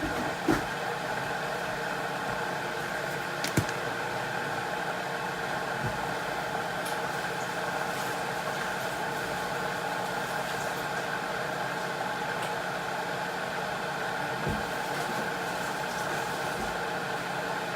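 Cosori electric kettle heating water: a steady rushing hum, with a few light clicks and knocks from handling.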